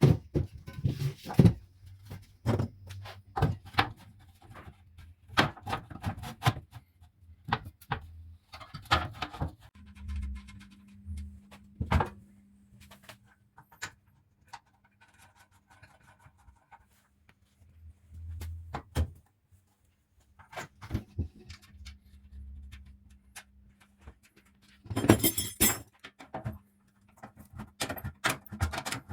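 Scattered clicks, clinks and knocks of metal fan parts being handled and fitted, with a few low thumps. A steady low hum comes in about ten seconds in and carries on under them.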